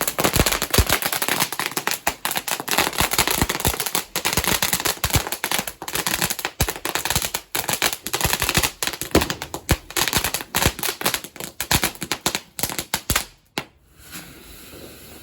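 Fireworks going off in a rapid, dense string of cracks and bangs, stopping near the end.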